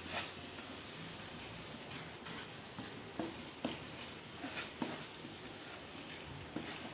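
Plastic spatula stirring and scraping a spice-and-onion masala as it fries in oil in a non-stick wok: a faint steady sizzle with irregular soft scrapes and taps of the spatula against the pan.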